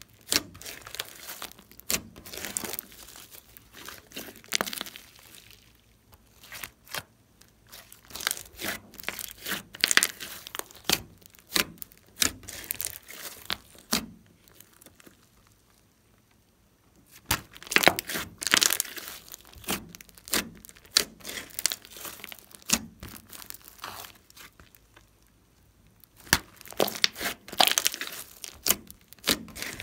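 Slime being squeezed, poked and stretched by hand, giving irregular sticky clicks and crackles in bursts, with a pause of a few seconds about halfway.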